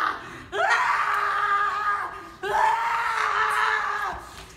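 A stage actor's acted screams: two long, high screams, the first starting about half a second in and the second about halfway through, each held for nearly two seconds.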